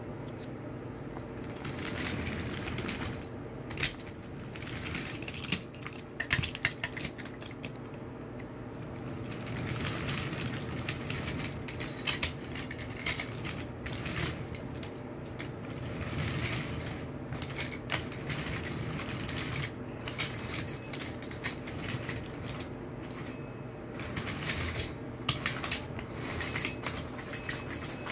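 Wooden toy trains pushed by hand along wooden track: a rolling rumble of wooden wheels that swells and fades several times, with many sharp clicks and clacks of the small wooden cars.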